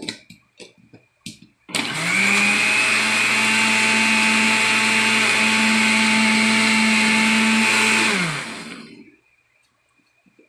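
Electric countertop blender blending a shake: a few light clicks and knocks, then the motor starts about two seconds in, runs steadily for about six seconds, and winds down as it is switched off.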